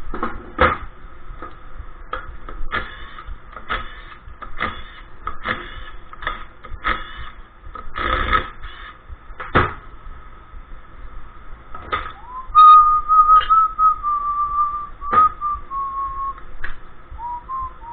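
Metal transmission parts clinking and knocking as a 46RE automatic transmission is taken apart, a dozen or so separate clanks over the first ten seconds. Later a person whistles a few slow, held notes that drift gradually lower in pitch.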